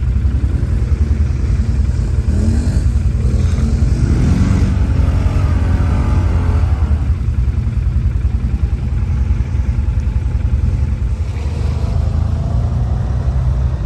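Quad bike (ATV) engine running and revving, with a heavy low rumble and some rises and falls in pitch.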